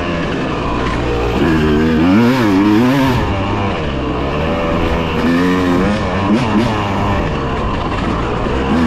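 Dirt bike engine revving up and down as the throttle is worked, its pitch rising and falling several times over a constant low rumble.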